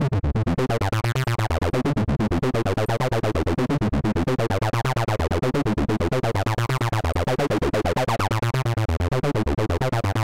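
Acid techno lead from the Serum synthesizer: a distorted sawtooth through a low-pass filter, playing a looping sequence of fast, short staccato notes. An LFO sweeps the filter slowly open and closed.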